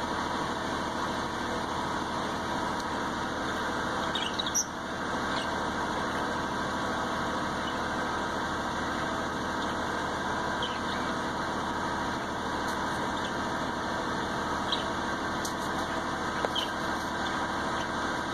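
Steady mechanical hum with a few faint, short budgerigar chirps scattered through it, one a quick rising chirp about four and a half seconds in.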